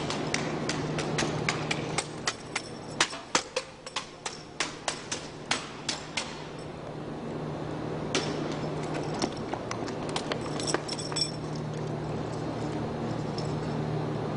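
Drill rifles being handled in an armed drill routine: a quick run of sharp clacks as hands slap and catch the rifles, for the first six seconds or so. A few scattered clacks follow, starting about eight seconds in.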